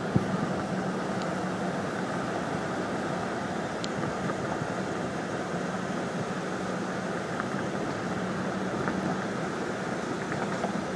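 Steady road and wind noise of a moving car heard from inside the cabin with a window rolled down, under a faint low hum. A single sharp click sounds just after the start.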